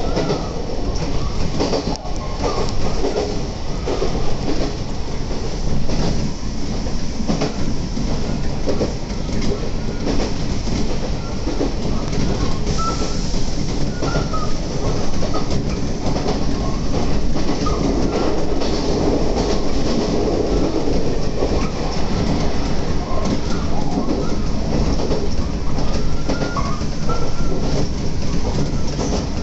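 Electric train running along the track, heard from inside the car: a steady rumble of wheels on rail, with repeated clacks as the wheels pass over rail joints.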